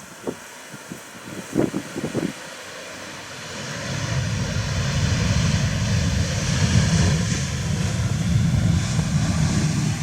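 Wind gusting on the microphone at first, then the jet noise of a landing Boeing 737-800's CFM56 engines swells in about three and a half seconds in. It is a low rumble under a high rushing hiss, growing louder as the airliner comes close.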